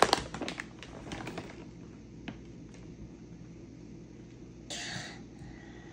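Plastic bag of shredded cheese crinkling and rustling as a hand digs in and pulls out a handful, with scattered light crackles; another short rustle a little before the end.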